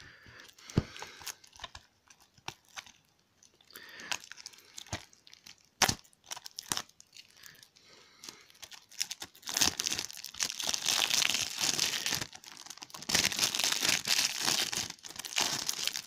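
Clear plastic shrink-wrap being crinkled and torn off a DVD box set: scattered crackles at first, then long stretches of dense, loud crinkling in the second half.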